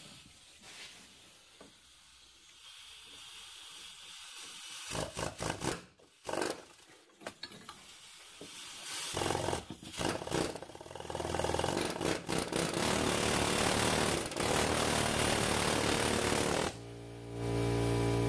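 A few clanks of handling, then a pneumatic air hammer rattling hard against the inner tie rod to drive the stubborn joint loose. The hammering starts about nine seconds in and runs in long bursts, with a brief pause near the end.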